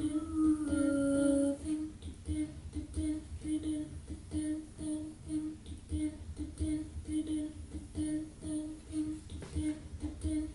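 A voice humming: a couple of held notes, then from about two seconds in one short note repeated evenly about twice a second.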